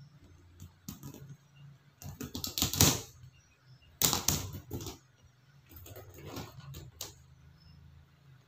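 Pliers clicking and a stiff black wire rod scraping and rattling as its end is bent over, in several bursts of clicks and rustle, the loudest about three seconds in and again about four seconds in.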